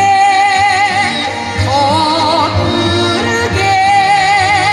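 A female Korean folk singer (sorikkun) singing through a microphone, holding long notes with a wide vibrato, with a phrase rising in pitch about two seconds in. Instrumental accompaniment with a steady bass line plays underneath.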